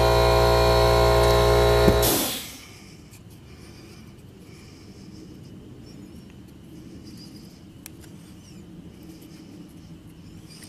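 A machine's steady, loud hum runs and then dies away about two seconds in, leaving a quiet background with a few faint high chirps.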